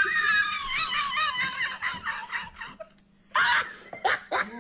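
High-pitched, squealing laughter that wavers up and down and dies away about two and a half seconds in, followed by a short loud outburst and a few clicks.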